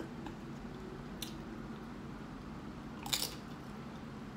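A tortilla chip bitten with a short crunch about three seconds in, after a faint single tick about a second in.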